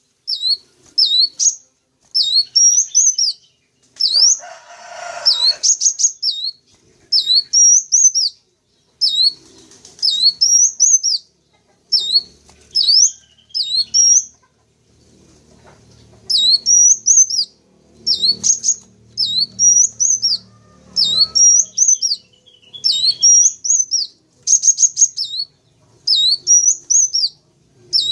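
Sunbird song used as a lure call: short, high, sharp phrases of quick up-and-down whistled notes, repeated about once a second with a brief pause past the middle. A short rustling noise comes about four seconds in.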